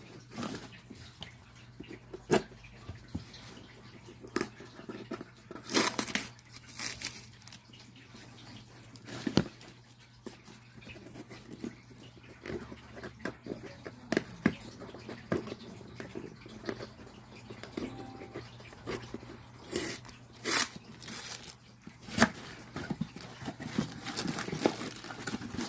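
Cardboard box being opened and handled by hand: irregular knocks, scrapes and rustles of the flaps and packing, over a steady faint low hum.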